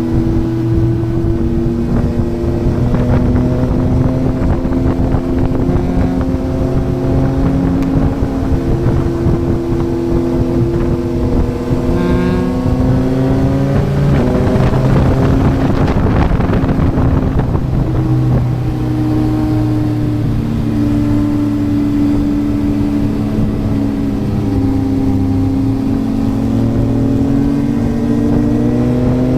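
Yamaha MT-09's inline-three engine through a Yoshimura R11 exhaust, under way at a mostly steady throttle with its note stepping up and down in pitch. About twelve seconds in the note rises under acceleration, with a rush of noise for a few seconds before it settles again.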